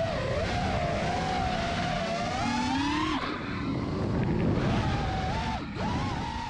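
FPV quadcopter's brushless motors whining, the pitch wandering up and down with the throttle, with a sharp drop and quick recovery near the end.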